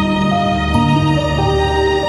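Background music: calm instrumental with held notes that change every half second or so.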